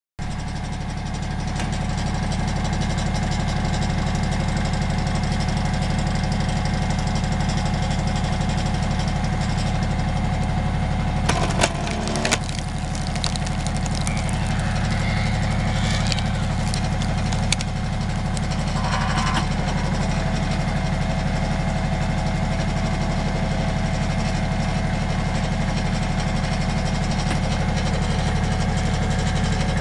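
Compact tractor engine running steadily while it powers a hydraulic log splitter. A few sharp cracks come about twelve seconds in as the wedge splits the log.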